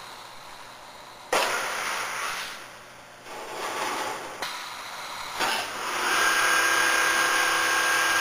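ABM double-needle quilting machine running, its sewing head stitching across a clamped quilt. The machine noise rises and falls, jumping suddenly a little over a second in, and from about six seconds settles into a steady run with a thin high hum.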